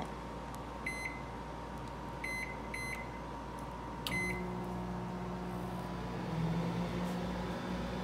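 RCA microwave oven keypad beeping three times as the cooking time is entered, then a fourth beep about four seconds in as it starts, after which the microwave runs with a steady low hum.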